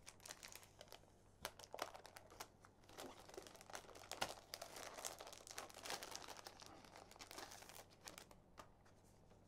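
Plastic wrapping being crinkled and torn off a small deck of game cards: a faint, irregular run of crackles, busiest around the middle.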